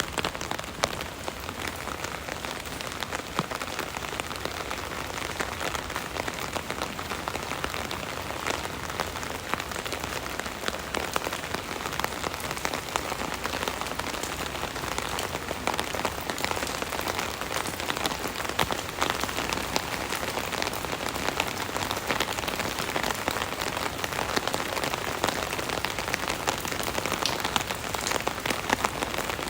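Steady rain falling on an umbrella canopy, a dense patter of many individual drops tapping on the fabric.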